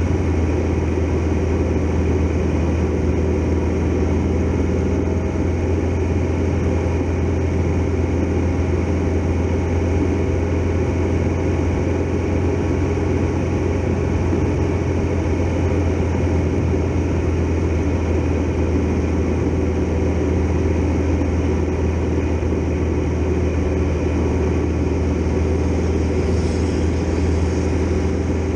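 Triumph Tiger Explorer XRx motorcycle's three-cylinder engine running at a steady cruising speed, a constant low hum with a haze of road and wind noise over it.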